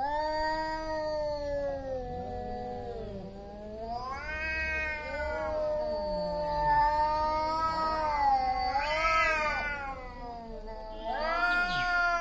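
Two tomcats caterwauling face to face: long, drawn-out yowls that rise and fall in pitch and overlap almost without a break, swelling louder twice. This is the territorial threat yowling of males just before a fight.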